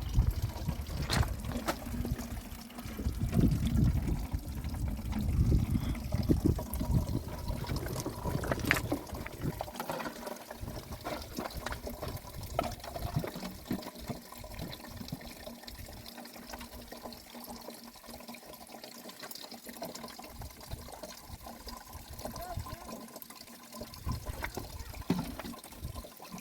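Running water trickling. There is heavy low rumbling through roughly the first ten seconds, then the sound settles to a quieter trickle with scattered small clicks.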